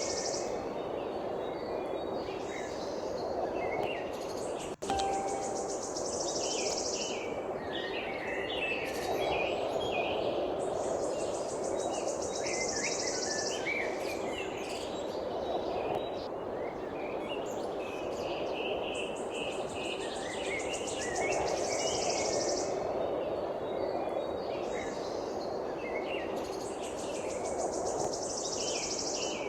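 Songbirds chirping and calling, with a high pulsed trill about two seconds long that comes back every few seconds, over a steady low background noise. A brief drop-out about five seconds in.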